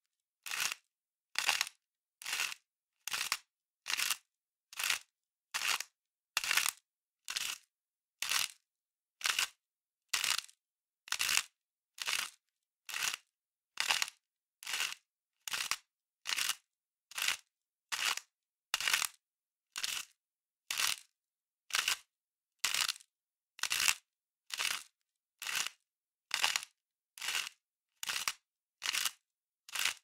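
Hand salt grinder being twisted in short, regular strokes, each a brief gritty crunch of salt crystals being ground, repeating about every 0.6 seconds with short silences between.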